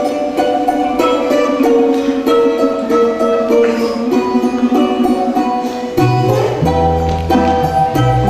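Music with a quick, pulsed melody over sustained notes; a deep bass line comes in about six seconds in.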